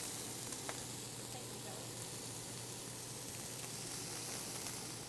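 Meat searing in a very hot cast iron pan: a steady sizzle.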